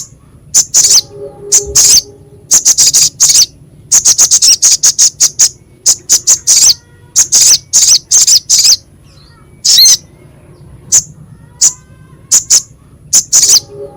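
Little spiderhunter (sogok ontong) calling: harsh, sharp, high chips, some single and some in rapid runs of several a second, with short pauses between runs.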